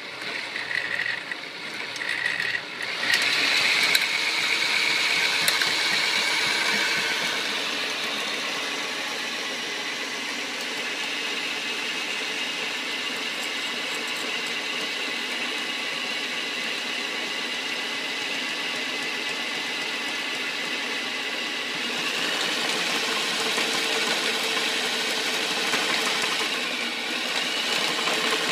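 Electric drill spinning a spool to wind copper wire onto it: a few short bursts in the first seconds, then a steady whir, a little louder over the last several seconds.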